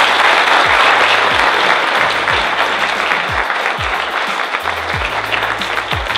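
Audience applauding after a speech, a loud, even clapping that eases off slowly. Background music with a steady beat and a bass line plays under it.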